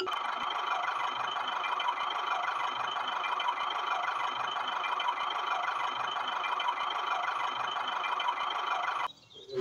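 Small motor of a toy tractor running with a steady whirr, then cutting off abruptly about nine seconds in.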